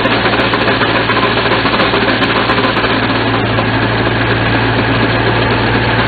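An engine running steadily, with a constant low hum under a noisy mechanical clatter.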